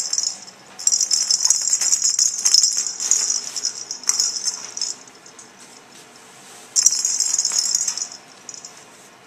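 A toy rattle jingling in bursts: a long stretch of steady rattling that tails off after about four seconds, then a second shorter burst near the seven-second mark.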